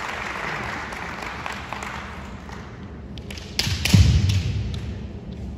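Applause dying away, then bamboo shinai clacking together in a quick exchange of kendo strikes, with a heavy thump from a stamping foot on the hardwood floor about four seconds in, the loudest sound.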